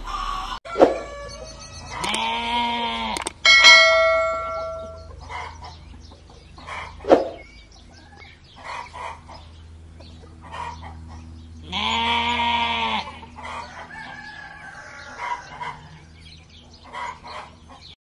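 Rooster crowing twice, about ten seconds apart, each crow about a second long. A bell-like chime rings just after the first crow, and short, fainter calls are scattered between.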